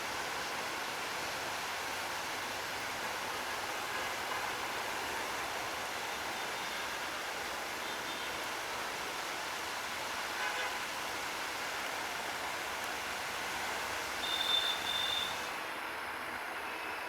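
A passing train runs on in heavy monsoon rain, heard as a steady hiss of rain mixed with rolling train noise. A brief high squeal comes about fourteen seconds in.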